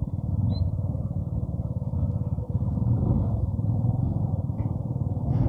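Hero Passion Plus 100cc single-cylinder four-stroke motorcycle engine running steadily while the bike is ridden along.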